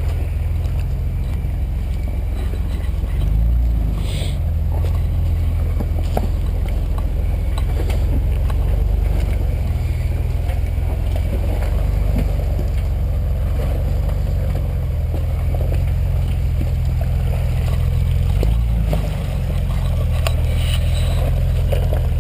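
Jeep Wrangler LJ's 4.0-litre straight-six engine running at low revs while crawling over rocks, its note shifting briefly twice, with a few knocks from the rocks or the vehicle.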